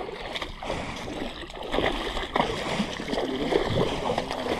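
Shallow water splashing and sloshing in irregular bursts, with scattered small clicks.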